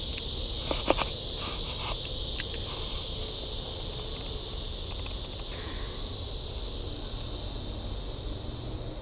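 Steady, high-pitched insect chorus, with a couple of sharp handling clicks about a second in.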